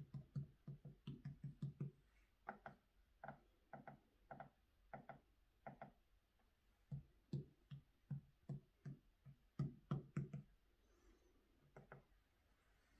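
Short sampled beats and notes from a JBL PartyBox 1000 speaker's light-up DJ pad, triggered one after another by tapping the pads in an uneven rhythm. The hits bunch quickly at first, then come about two a second with a brighter tone, then speed up again and stop about ten and a half seconds in.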